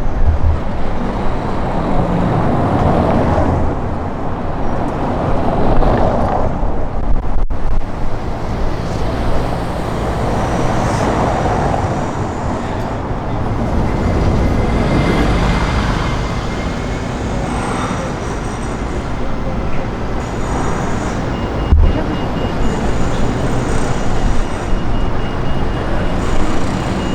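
Busy city street ambience: road traffic passing and scattered voices, with gusts of wind rumbling on the microphone.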